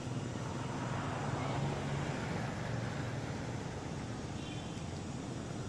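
Steady hum of distant motor traffic, a little louder about one to two seconds in.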